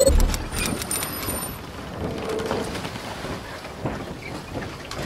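Logo-animation sound effects: a low bass hit at the start, then a steady noisy rush with thin high tones during the first second or so and scattered clicks.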